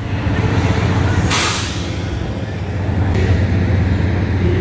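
Large carnival spinning ride running: a steady low rumble of its machinery, with a short hiss about every three seconds.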